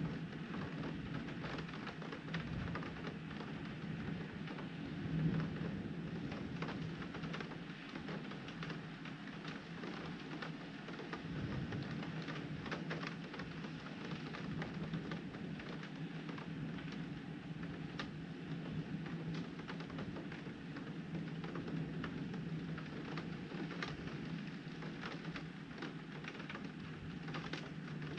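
Heavy rain pattering on window glass during a thunderstorm, thick with small sharp ticks of drops, over a steady low rumble.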